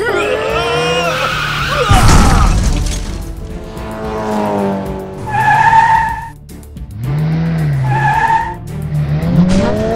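Cartoon sound effects of a race car out of control: engine revving and tyres skidding, with a loud crash about two seconds in, over background music.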